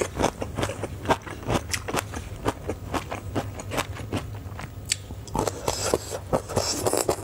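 Crunchy biting and chewing of a roasted bamboo shoot: a run of crisp crunches, roughly three a second. About five and a half seconds in, a fresh bite brings a denser burst of crackling.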